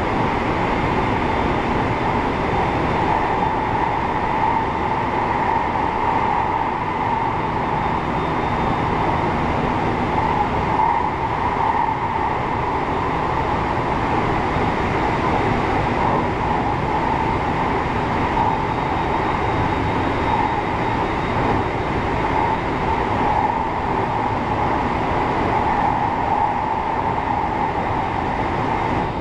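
JR 223-series electric train running at speed, heard from the driver's cab: a steady rumble and hiss of wheels on rail with a faint constant high tone.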